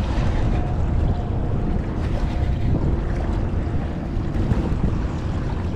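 Wind rumbling on the microphone over choppy open water, with a faint steady whine in the first half.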